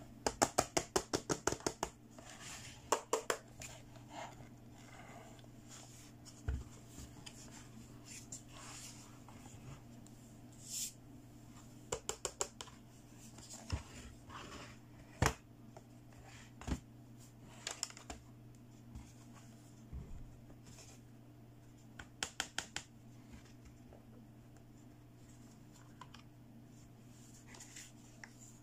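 Hard plastic toy CT scanner being handled: its sliding patient bed clicks in short rapid runs as it is moved, with scattered single plastic taps and knocks.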